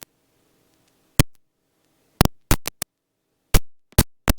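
A run of sharp electrical clicks in helicopter intercom audio, about eight at uneven spacing, with near silence between them and no steady rotor or engine noise coming through.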